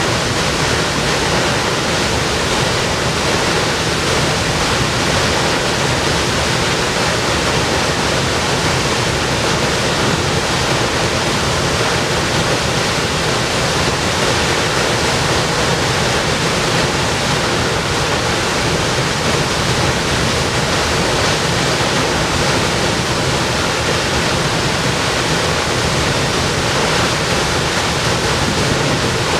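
Waterfall: a loud, steady rush of falling water with no breaks or changes.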